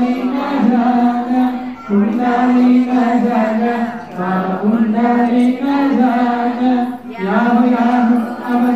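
Devotional chant sung in long held notes, in phrases of about two seconds with short breaks between them, as sung during an aarti lamp offering.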